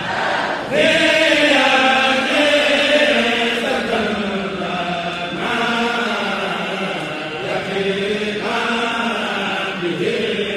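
Arabic Sufi qasida (a Mouride xassida) chanted by voices in long, held and gliding phrases; a new, louder phrase begins about a second in.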